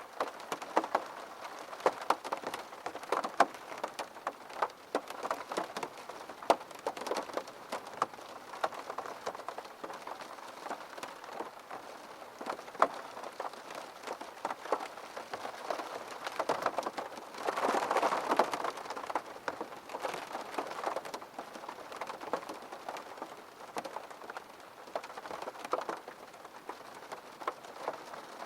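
Steady rain falling on a hard surface, with many distinct drops tapping sharply over the patter. It grows briefly heavier a little past halfway, then settles back.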